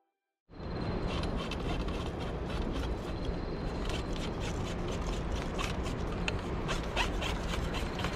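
Rubbing and scraping on a body-worn camera's microphone over a steady rushing noise with a low rumble, dotted with many small ticks. It starts abruptly about half a second in.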